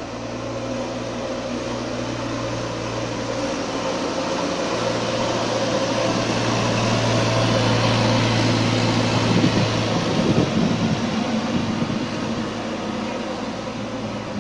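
JCB backhoe loader's diesel engine running as the machine drives past along the rails, growing louder as it nears and fading as it moves away, with a few sharp clanks about ten seconds in.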